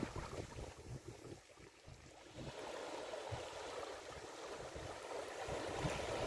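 Small sea waves washing in over a sandy shore and around rocks, a soft steady wash of water that dips briefly about a second and a half in.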